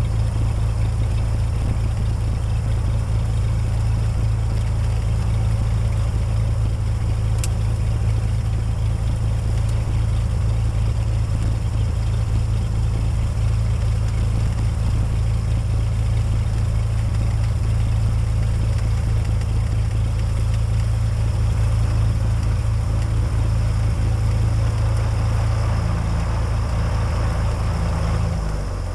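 Cessna 206's piston engine and propeller running steadily, heard from inside the cabin as a loud, even drone with a strong low hum; the engine note shifts slightly in the last few seconds.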